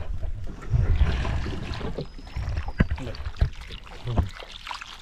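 Cast net being hauled up from the water alongside a small canoe: water splashing and dripping, the net and rope rustling against the hull, with a few sharp knocks on the boat.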